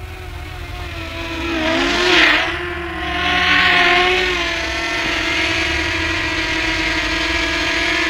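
Potensic Atom SE quadcopter's propellers whining as it flies close, growing louder over the first two seconds. The pitch dips and rises about two seconds in, then settles into a steady whine.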